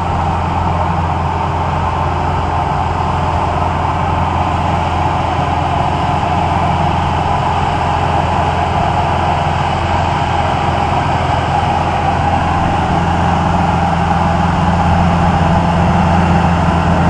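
Engine of a right-of-way tree-trimming machine, a tracked carrier with a saw on a long boom, running steadily and slowly growing louder as it comes closer.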